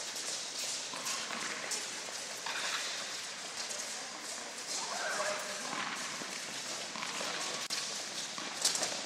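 Tennis balls being hit with racquets and bouncing on indoor courts, a run of sharp pops a fraction of a second apart in a large tennis hall, with voices in the background.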